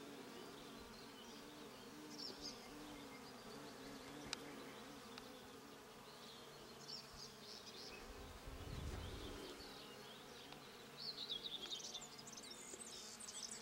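Bees humming as they work blackberry blossoms: a faint, steady hum that wavers in pitch. High chirping joins it and grows louder near the end.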